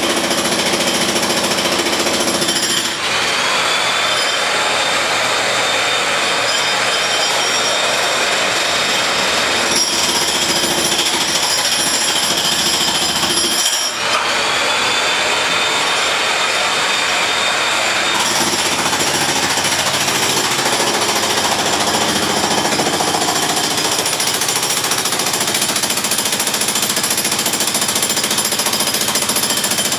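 Jackhammer hammering continuously, with two brief breaks, about three seconds in and again about fourteen seconds in.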